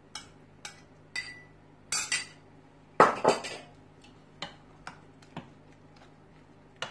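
Scattered clinks and knocks against a stainless steel mixing bowl as cubed cheese is added and a wooden spoon stirs the egg mixture, knocking the bowl's sides. The loudest knocks come about halfway through, as the stirring begins.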